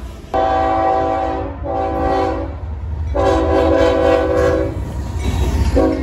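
Diesel locomotive's multi-note air horn sounding four blasts, the third the longest and the last one short, over the low rumble of a passing freight train.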